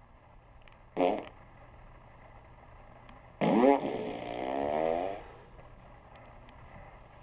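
Novelty remote-controlled fart machine playing two recorded fart sounds: a short one about a second in, then a longer one about three and a half seconds in, loud at first, with a wavering pitch.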